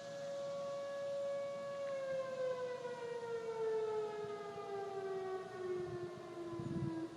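Outdoor tornado warning siren sounding during a siren test. It holds a steady tone, then winds down from about two seconds in, its pitch falling slowly.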